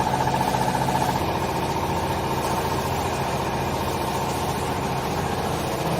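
Hydraulic baler's power unit, an electric motor driving the hydraulic pump, running with a steady hum.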